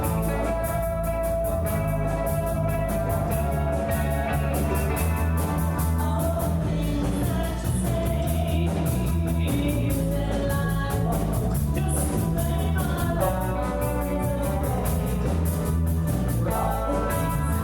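A rock band playing live: bass and drums with a steady hi-hat beat, guitar, and a voice singing held notes over it.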